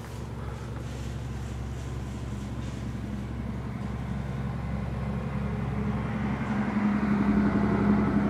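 A steady low mechanical hum that grows louder over the last few seconds, with a rushing noise building under it.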